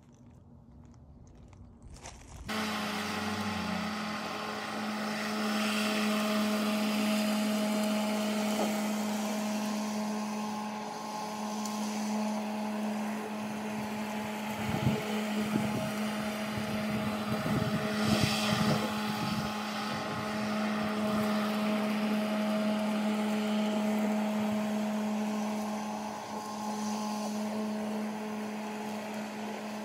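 Battery-powered push lawn mower running with a steady hum, starting about two and a half seconds in as it cuts grass. A few brief thumps come near the middle.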